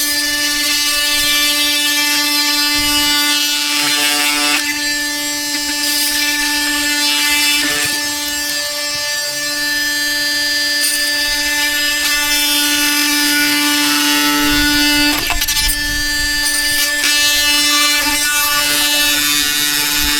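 A small motor-driven pump running steadily with a constant whine, pumping water out of a flooded irrigation valve box, with a few brief knocks.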